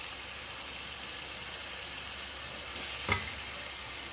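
Onion and tomato base with spices sizzling steadily in a pot, with a single knock about three seconds in.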